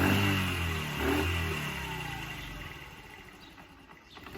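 Honda Chaly's small four-stroke single-cylinder engine, just started on fresh fuel and still on choke, is blipped on the throttle twice near the start. Its revs and loudness then sag away over the next few seconds, low and uneven near the end, as it struggles to keep running.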